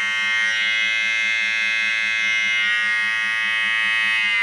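Electric beard trimmer buzzing steadily with a high, even tone as it cuts beard hair along the cheek and jaw. Its pitch dips briefly near the end.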